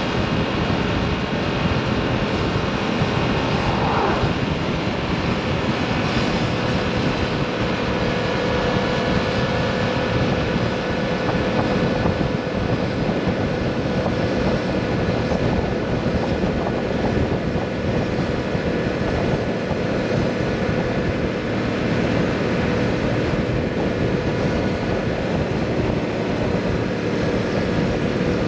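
2022 Yamaha MT-07's parallel-twin engine running while riding at a steady speed, its pitch holding level for most of the stretch, with a constant rush of wind noise underneath.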